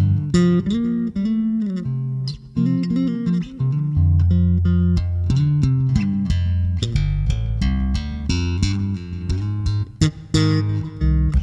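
Background music: plucked guitar notes over a bass line, with quick note changes throughout.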